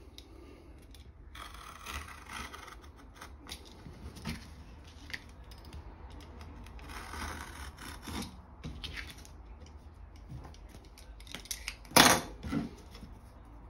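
Small knife blade scoring through PVC repair-patch material against a wooden chopping board, in scratchy cutting strokes with small clicks. A single sharp knock about twelve seconds in.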